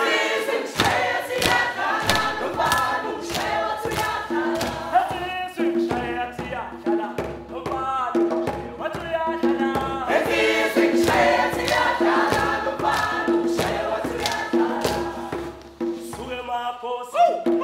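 Music: a choir singing over a steady beat.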